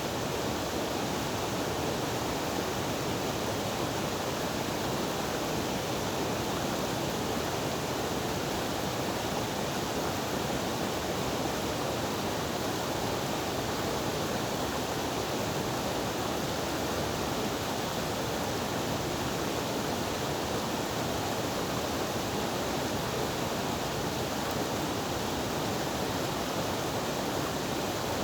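Mountain stream rushing steadily over rocks, an even unbroken sound of flowing water.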